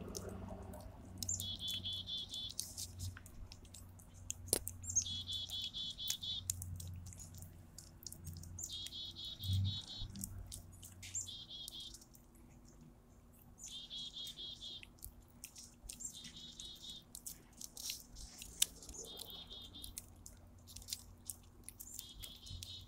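A small bird's trilled call, repeated about seven times, each trill about a second long with a few seconds between. Faint wet clicks of a cat licking a lickable cat treat from a squeeze tube are heard alongside.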